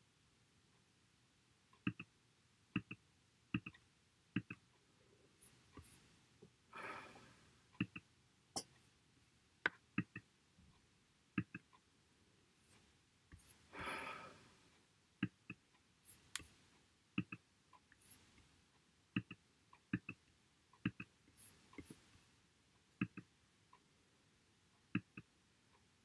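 Sharp, irregular clicks in a quiet room, roughly one a second, with two longer breathy noises about 7 and 14 seconds in.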